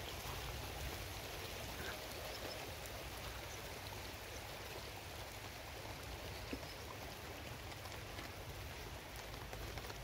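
Rain falling steadily, an even hiss with a few faint ticks.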